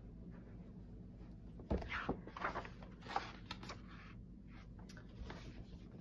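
A picture book's page being turned: paper rustling with a few light knocks, lasting about two seconds and starting a little under two seconds in.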